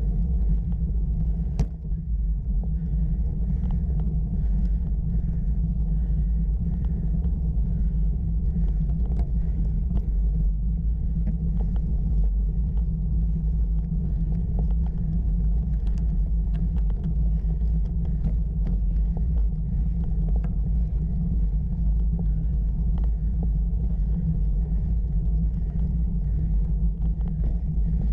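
Steady low rumble picked up by a camera riding on a bicycle as it climbs a rough tarmac road, from road vibration and air moving over the microphone, with scattered faint clicks and rattles.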